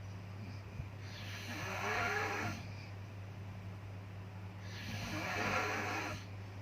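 Snoring: two long snores about three and a half seconds apart, over a steady low hum.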